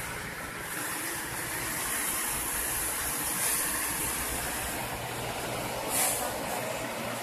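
Asphalt paver's diesel engine running steadily, with a brief hiss about six seconds in.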